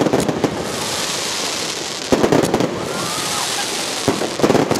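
Aerial fireworks bursting: clusters of sharp bangs at the start, about two seconds in and near the end, over a steady hiss.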